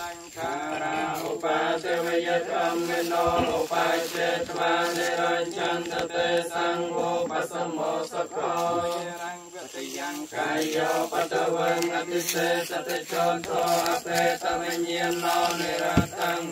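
Buddhist monks chanting together in a steady, continuous recitation.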